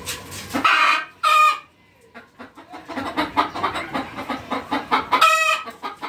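A hen cackling loudly: two loud drawn-out squawks about a second in, a run of quick clucks, then another loud squawk near the end. It is the racket of an egg song, though the owner says she isn't laying.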